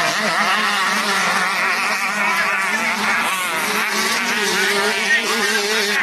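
Several 125cc two-stroke motocross bikes racing, their engines revving up and down in overlapping, wavering pitches.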